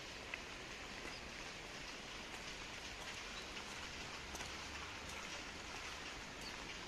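Steady light rain falling on paving stones, with a few single drops ticking louder now and then.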